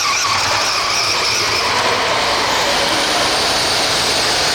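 Radio-controlled pulling vehicle's motor whining at high revs under load during a pull, its pitch sagging slowly as the run goes on.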